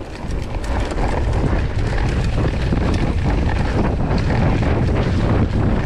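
Wind buffeting the microphone of a handlebar-mounted camera on a mountain bike riding downhill on a dirt trail. The rush gets louder about a second in as the bike picks up speed, with faint ticks and rattles underneath.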